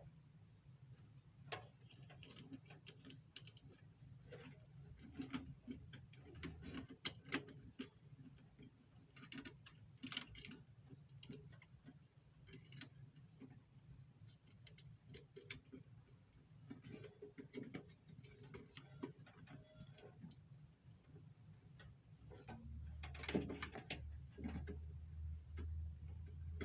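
Faint, irregular light clicks and taps of hands working on electrical wiring and small parts, over a low steady hum; a deeper hum joins near the end.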